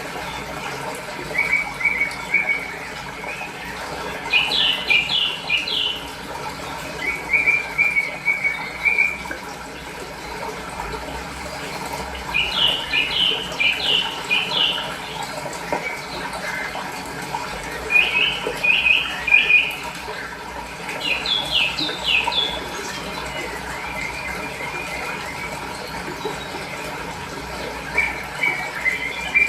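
Small birds chirping in quick runs of high notes, a run every few seconds, over a steady rush of flowing water.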